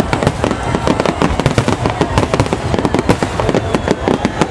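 Aerial fireworks shells bursting in a rapid barrage, many sharp bangs and crackles a second running into each other.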